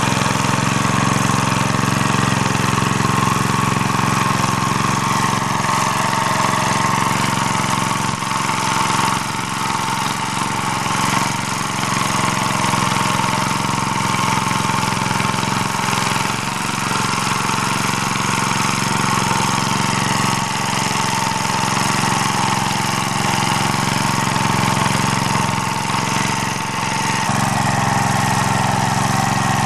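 Engine of an MD3 walk-behind tractor running steadily in first gear while its rotary tiller churns the soil, the note dipping briefly a few times as the load changes.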